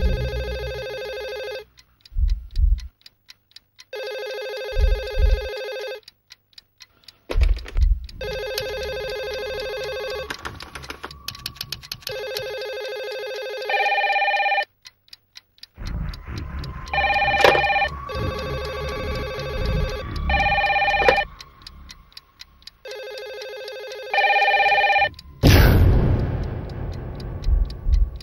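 Electronic telephone ringing in repeated rings about a second and a half long, with a second, higher-pitched ring coming in alongside from about halfway. Low thuds and runs of fast ticking sit under the rings, and a sudden swish comes near the end.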